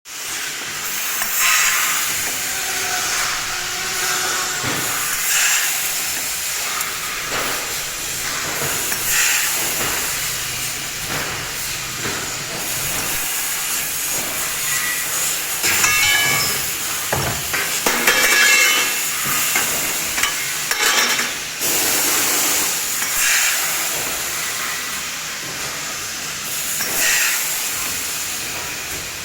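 3D CNC fiber laser cutting holes in a steel box: a steady hiss of assist gas at the cutting head, swelling in short surges every second or two as it pierces and cuts each hole.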